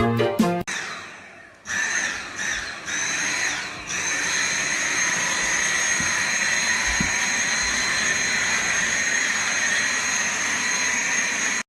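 Music cuts off. About two seconds in, a small electric motor with a high whine starts in three short bursts, then runs steadily.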